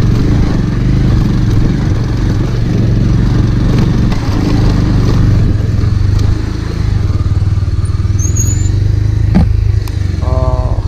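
Motorcycle engine running at a steady speed while riding, under a constant rush of wind and road noise.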